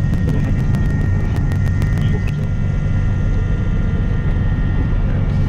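Cessna 340's twin turbocharged six-cylinder piston engines running at low taxi power, heard from inside the cockpit: a steady drone with a thin high whine over it and light rapid ticking during the first couple of seconds.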